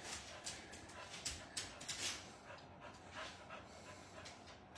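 A dog breathing in faint, short panting breaths at an uneven pace, roughly two a second.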